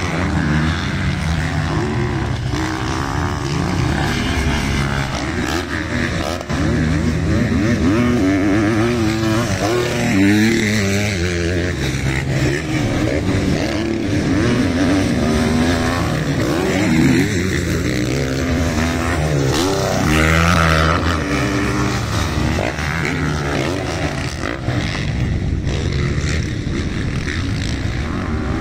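Several motocross dirt bikes riding around the track, their engines revving up and down without a break. The overlapping engine notes rise and fall as the riders accelerate and back off.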